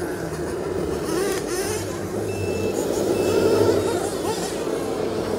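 Radio-controlled scale tipper truck running, with a steady low engine hum from its sound unit and two short high electronic beeps a little past the middle.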